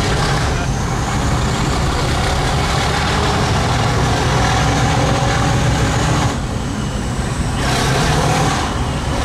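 Class 37 diesel locomotive pulling the train, heard from inside a coach through an open droplight window: a loud, steady engine throb with a high whistle that rises over the first few seconds. The sound dulls briefly twice in the second half.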